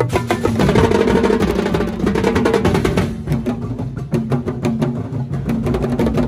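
A large Dinagyang-style festival drum corps playing a fast, dense rhythm on many drums with sticks, sharp stick strikes running close together over the drums' low body.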